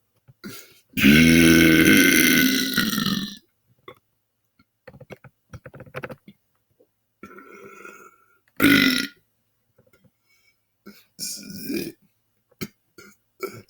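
A man belching the alphabet: one long loud belch about a second in that lasts over two seconds, then a short loud belch near nine seconds in, with smaller sounds and faint clicks between.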